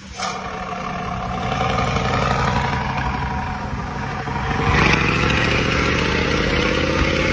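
Bus diesel engine running; about two-thirds of the way through it gets louder, with a hiss added and its pitch slowly rising as it picks up speed.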